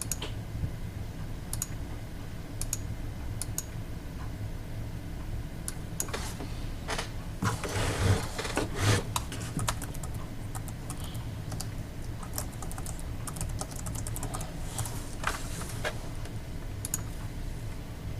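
Scattered clicks and taps of keys and buttons being pressed while working the music software and its controller, with a quick flurry around the middle and another near the end, over a low steady hum.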